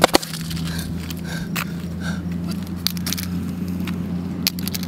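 A couple of sharp knocks as a mobile phone is smashed on asphalt, then a few scattered clicks of its broken plastic and metal pieces, over a steady low hum.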